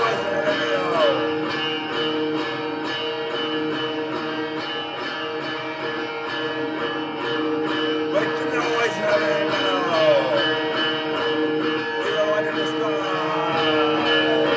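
Instrumental stretch of a song: guitar playing over a steady beat, with repeated sliding, bending notes.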